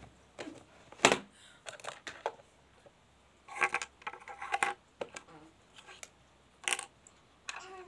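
Light plastic toy-kitchen pieces clicking and clattering as they are handled: a toy oven door and small plastic dishes knocked together and onto a tabletop. The loudest knock comes about a second in, with a burst of clatter a little past the middle.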